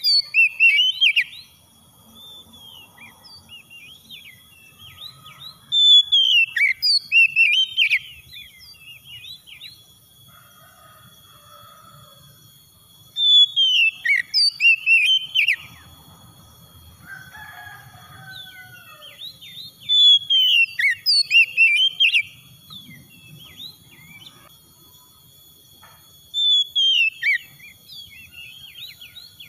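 Oriental magpie-robin singing: loud phrases of quick whistled notes that rise and fall, each lasting a second or two, repeated about every six seconds, five phrases in all.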